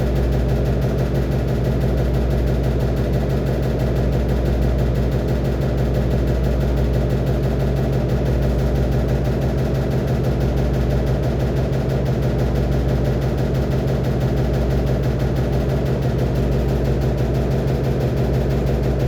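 Electrolux LAC13 washing machine in its spin cycle: a steady, even low hum of the motor and spinning drum.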